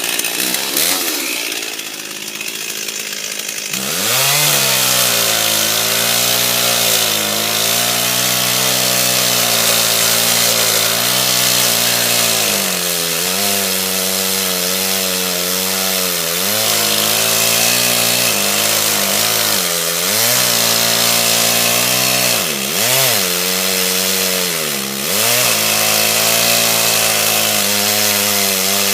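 Stihl Farm Boss two-stroke chainsaw cutting into a tree trunk, the felling cut behind the notch. It runs rough for a few seconds, revs up about four seconds in, and then holds at full throttle under load, its pitch dipping several times as the chain bites into the wood.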